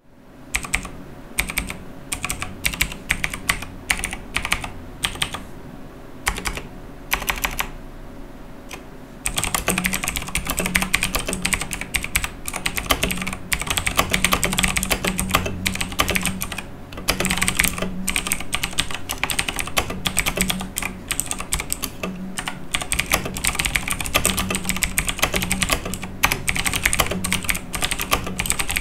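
Razer BlackWidow Chroma mechanical keyboard being typed on: scattered separate keystrokes at first, then from about a third of the way in a fast, continuous run of key clicks.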